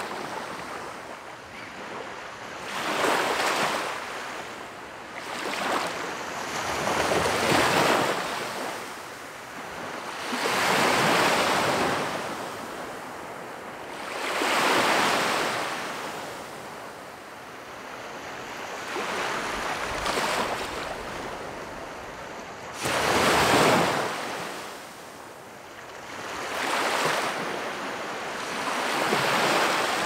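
Small waves breaking and washing up on a sandy beach, the rush of surf swelling and fading about every three to four seconds.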